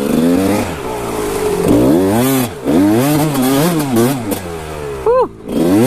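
Kawasaki KX125 two-stroke dirt bike engine revving up and down as it is ridden, the pitch rising and falling with the throttle. About five seconds in the revs jump and the engine briefly drops off, then picks up again.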